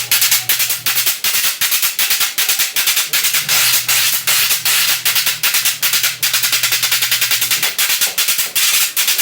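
Cane guacharaca, a ridged cane scraper, scraped with its wire fork in a fast, steady guaracha rhythm, several scrapes a second.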